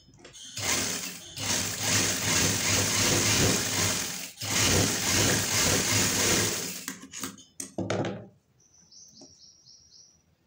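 JUKI industrial single-needle sewing machine running at speed while stitching narrow pleats into cloth: two runs of stitching with a short stop between them about four seconds in. The machine stops about seven seconds in, followed by a few brief handling sounds.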